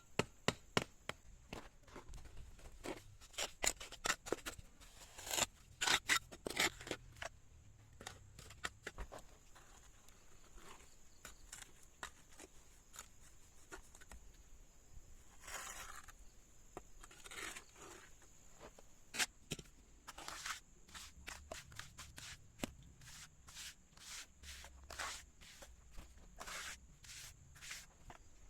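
Irregular sharp clicks, snips and scrapes, some in quick runs, over a steady high-pitched insect drone.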